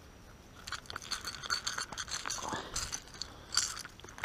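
Irregular crackling scrapes and small clicks of hands working a hook free from a freshly caught bass's mouth.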